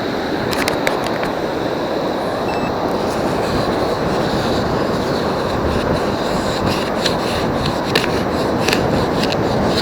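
Steady rushing wash of surf and churned sand, with scattered sharp clicks and scraping of shells and gravel as a target is dug out and sifted, most clicks coming in the second half.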